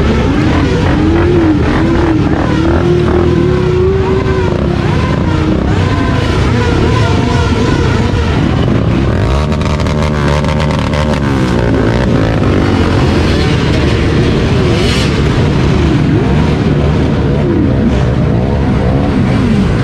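Quad bike and motorcycle engines revving, their pitch rising and falling again and again, with a quick run of throttle blips about ten seconds in.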